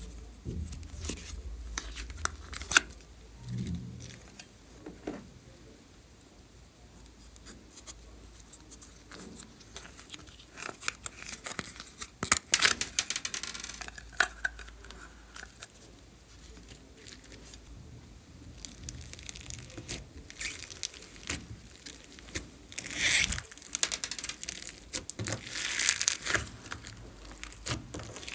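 Soft modelling clay being peeled and torn out of plastic heart-shaped molds, with tearing and crinkling noises and small clicks from the plastic being handled. It comes in irregular bursts, loudest about halfway through and again near the end.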